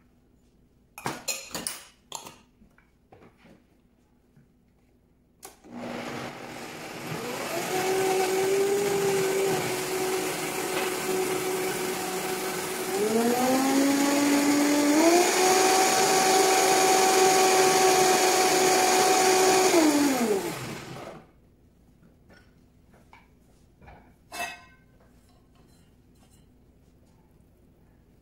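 Countertop blender puréeing pesto sauce: the motor starts up, runs with a steady whine, steps up in pitch twice as the speed is turned up, then is switched off and winds down. A few short knocks of handling come before it starts.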